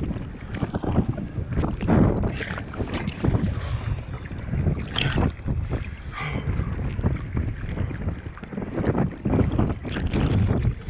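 Strong gusting wind rumbling on the microphone, with water splashing and slapping against a kayak in storm-driven waves, coming in irregular surges.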